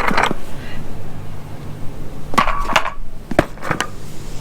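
Metal clanks and knocks from a grain truck's trailer tailgate latches being worked, a couple near the start and a quick cluster of four or five about two and a half to four seconds in, one ringing briefly. A steady low engine hum runs underneath.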